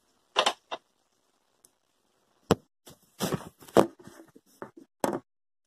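Scattered sharp knocks and clatters of a cutting board and knife being picked up and handled, with a cluster of small taps about three to four seconds in.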